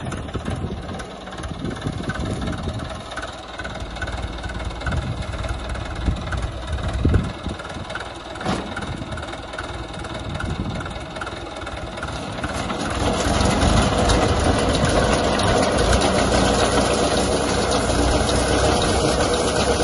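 Tractor diesel engine running with a front-mounted reaper binder working, with a regular light clicking from the machinery. About 13 seconds in the sound grows louder and denser as the reaper binder cuts into standing wheat.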